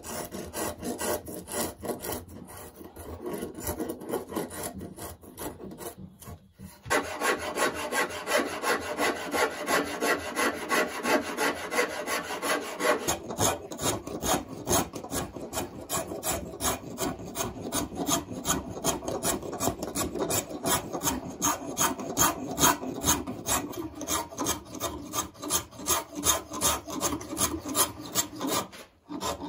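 Spokeshave shaving a wooden banjo neck in quick, repeated scraping strokes, with a short pause about six seconds in.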